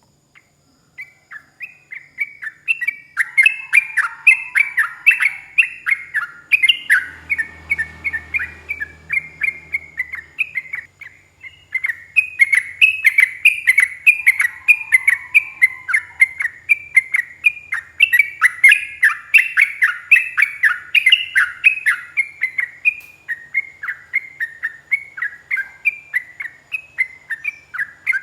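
Yellow-vented bulbul singing a long, fast chattering song, a continuous run of short, bright notes several to the second. The song starts about a second in and breaks off briefly about eleven seconds in.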